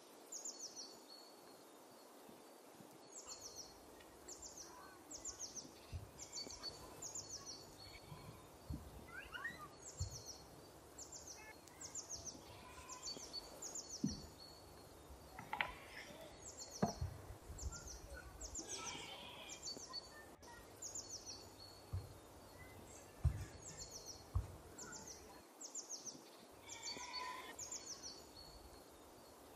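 A small bird calling over and over, a high, falling note repeated about twice a second in long runs with short breaks, while other birds chirp now and then. A few light taps and clicks sound in between, the sharpest about two-thirds of the way through.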